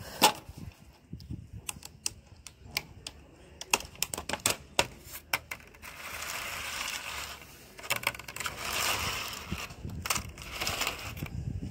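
A clear plastic food container crackling and clicking as it is handled, in a long run of sharp cracks with stretches of dense crinkling. The loudest sound is a sharp hiss from the tabby mother cat right at the start.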